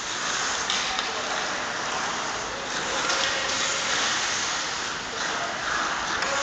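Several ice hockey skates carving and scraping across the ice: a continuous hissing swish that swells and fades as players stride and turn.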